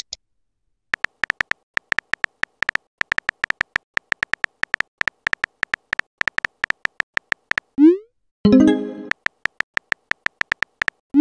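Simulated phone keyboard typing clicks from a texting-story app, a rapid run of light taps lasting several seconds. About eight seconds in, a short rising tone and a ringing chime mark the message being sent, then the typing clicks resume.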